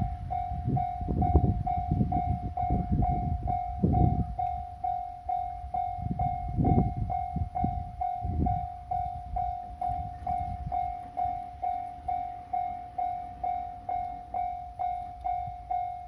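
Japanese railway level-crossing warning bell starting up and ringing steadily, a clear repeated 'kan-kan' tone about 1.4 times a second, signalling an approaching train as the barriers lower. A gusty low rumble underlies the first half.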